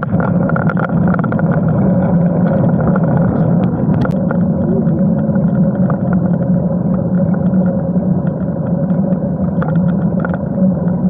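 Steady rush of wind on the microphone and tyre noise of a road bike ridden at speed on tarmac, with small knocks from the bike over the road and one sharp click about four seconds in.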